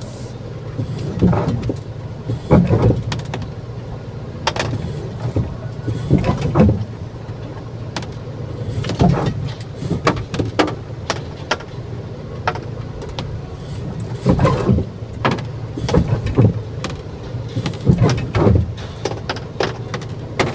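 Brakes of a 2022 Geely Coolray making a noise each time they are pressed, heard over the car's running drone as a string of short sounds every second or two, with the brake applied and released over and over. The pads are worn thin, so their wear indicators are rubbing on the rotor discs.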